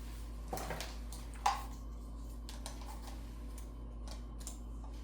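A few light clicks and knocks from a wooden workpiece being handled, in the first second and a half, over a low steady hum.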